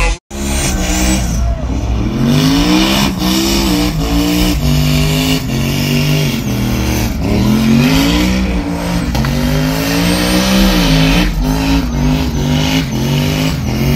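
Pickup truck doing a burnout and donuts: the engine revs up and down over and over, about once a second, while the rear tires squeal as they spin on the pavement.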